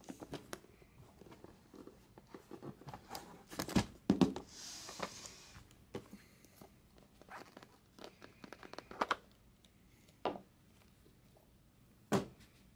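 Hands handling an aluminium card briefcase and what is packed inside it: scattered clicks and knocks, with a short rustle about four and a half seconds in.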